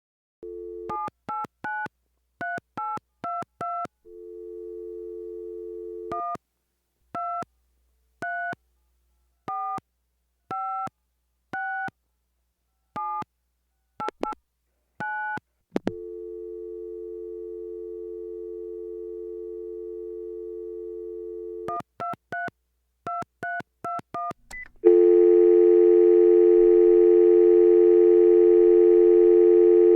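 Telephone dial tone alternating with touch-tone (DTMF) keypad beeps as numbers are dialled: a short burst of about six keypresses, dial tone, about ten slower keypresses, dial tone again, then about eight quick keypresses. About 25 seconds in, a much louder, buzzy call-progress tone takes over and holds steady.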